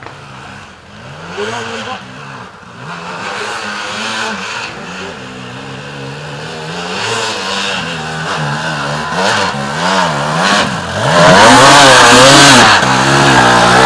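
Enduro dirt bike engine revving up and down under load on a climb, getting louder as it approaches and loudest about eleven seconds in as it passes close.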